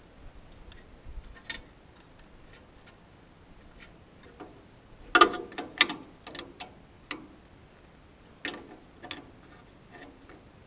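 Light metallic clicks and clinks of a hand tool and wire terminals being worked on a tractor's wiring, scattered through, with a louder run of clinks about halfway through and another few a little later.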